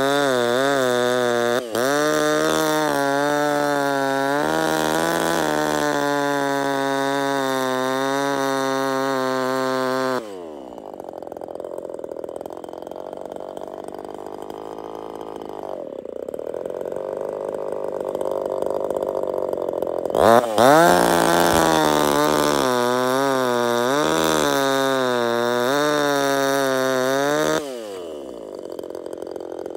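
A 25cc two-stroke top-handle chainsaw, a Zenoah/RedMax G2500 clone, runs at high revs with the pitch wavering as it cuts into a log, drops sharply to idle about ten seconds in, revs up and cuts again about twenty seconds in, and falls back to idle near the end. It settles into a steady idle between cuts, the sign that its long-standing idle problem has been fixed.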